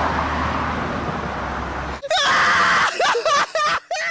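A steady rushing noise that cuts off about halfway through, followed by a person screaming in several wavering yells that swoop up and down in pitch.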